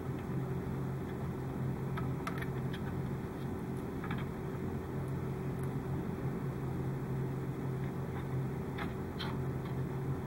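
A steady low background hum, with a few faint clicks and rustles from thin LED lead wires being twisted together by hand.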